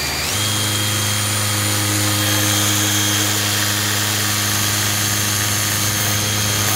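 Makita 18 V cordless drill spinning a drill-powered water pump: a steady motor whine whose pitch steps up just after the start as it comes up to speed, then holds. Water gushes from the pump's outlet hose into a stainless sink.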